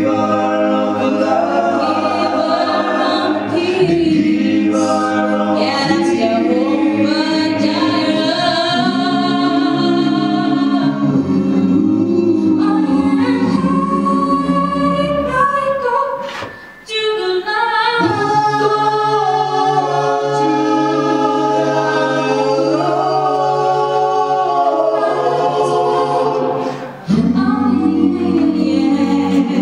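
A seven-voice gospel a cappella group of men and women singing in close harmony through microphones, with no instruments. The chords are held and sung straight through, broken by two short pauses between phrases, one just past the middle and one near the end.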